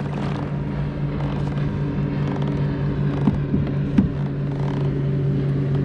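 Small boat motor running at a steady speed with an even hum, and a few light knocks between three and four seconds in.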